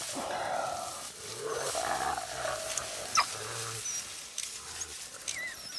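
African wild dogs and spotted hyenas fighting at close quarters: harsh growling, with thin high squeaks and chirps through it and one sharp short call about three seconds in.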